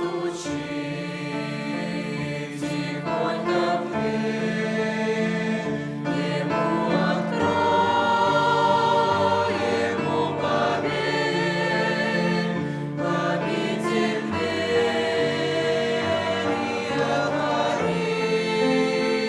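Church choir singing a slow hymn in several voice parts, with sustained chords that change every second or two over a steady bass line.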